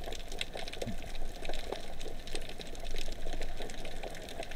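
Underwater ambience: a steady hiss thick with many faint, irregular clicks and crackles.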